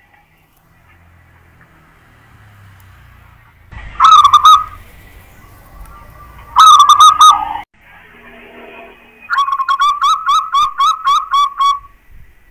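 Zebra dove (perkutut) cooing: two short bursts of notes, then a longer run of about nine quick, evenly spaced notes.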